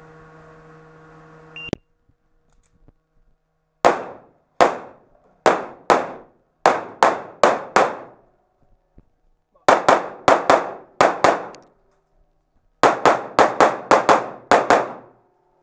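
Pistol shots fired in rapid succession during an IPSC stage, in three quick strings of about seven to nine shots each with short pauses between them. Each shot is a sharp crack with a short reverberant tail.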